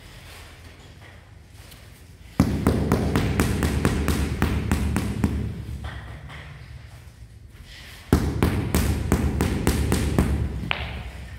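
Rubber mallet tapping a large ceramic floor tile down into its mortar bed: two runs of quick, dull taps, several a second, each lasting a few seconds, the first starting about two seconds in and the second about eight seconds in.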